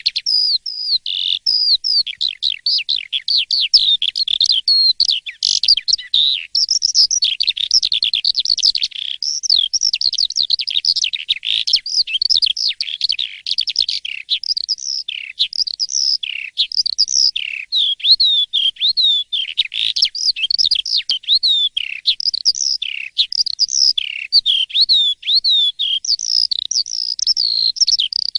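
Asian pied starling (jalak suren) in full, non-stop song: a loud, continuous stream of short varied whistled notes and quick pitch glides.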